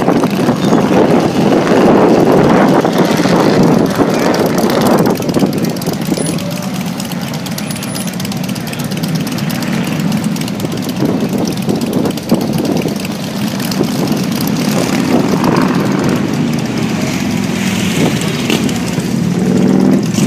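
Motorcycle engines running and passing close by, loudest in the first five seconds, then a lower steady traffic rumble.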